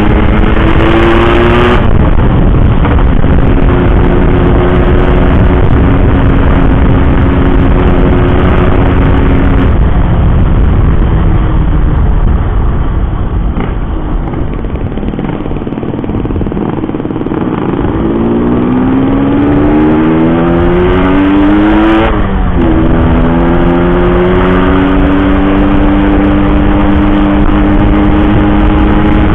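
Yamaha RX-King's two-stroke single-cylinder engine running on the road. Its pitch climbs at the start and holds steady, then it eases off and goes quieter for a few seconds in the middle. It climbs again, drops sharply at a gear change about two-thirds of the way through, and then cruises steadily.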